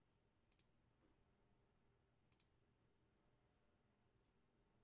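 Near silence: room tone with two faint sharp double clicks, one about half a second in and another about two and a half seconds in.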